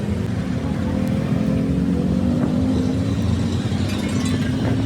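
Diesel truck engine running steadily, its pitch rising slowly as it pulls.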